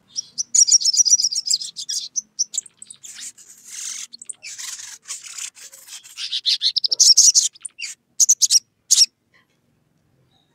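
Olive-backed sunbird giving rapid, high-pitched chattering chirps in fast runs, scratchier in the middle, ending with a few separate sharp chirps. This is its agitated call to a rival.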